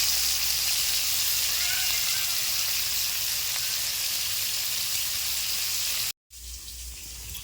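Magur (walking catfish) coated in salt and turmeric frying in hot oil: a loud, steady sizzle. It breaks off briefly about six seconds in and comes back quieter.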